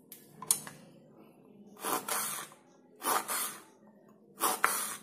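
Serrated kitchen knife slicing raw brinjal into thin rounds on a plastic cutting board. There is a light tap about half a second in, then three short cuts roughly a second apart.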